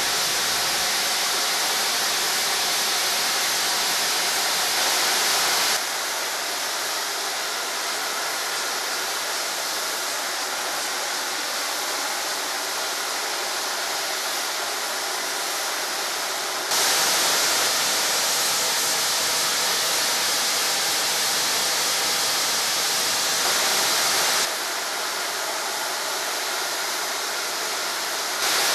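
Steam locomotive 46233 Duchess of Sutherland, an LMS Princess Coronation Class Pacific, standing and blowing off steam: a loud, steady hiss that starts abruptly and steps up and down in strength several times.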